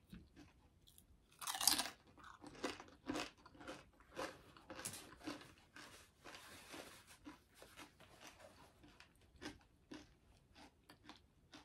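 A tortilla chip with guacamole being bitten and chewed: crisp crunches at an uneven pace, the loudest bite about a second and a half in, then softer chewing.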